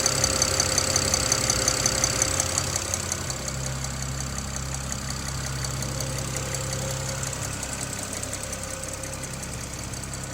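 BMW N54 twin-turbo straight-six idling with a rapid, regular ticking, about four ticks a second. The ticking is loud at first and grows fainter after about two and a half seconds, while the engine hum carries on.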